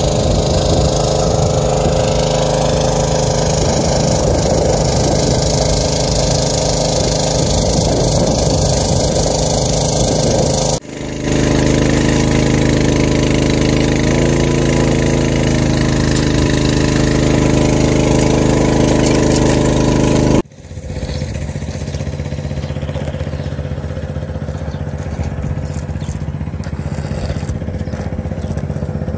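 Engine of a portable water pump running steadily while it pumps flood water. The sound breaks off sharply twice, about 11 and 20 seconds in, and runs somewhat quieter after the second break.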